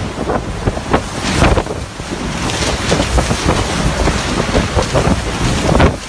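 Strong storm wind buffeting the microphone in uneven gusts.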